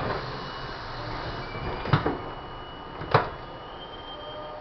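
Inside an R-32 subway car under way: a steady running rumble with a faint high steady tone, broken by sharp metallic clanks about two seconds in and again a second later.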